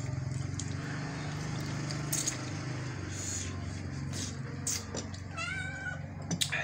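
A cat meowing: one drawn-out call about five seconds in, over a steady low hum and a few light knocks.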